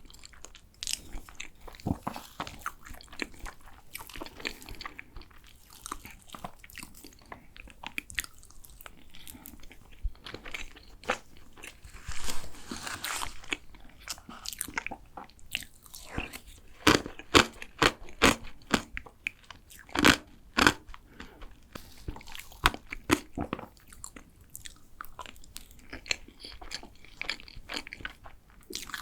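Close-miked eating ASMR: biting and chewing tiramisu cake, with many sharp crunchy clicks, loudest in a cluster around the middle.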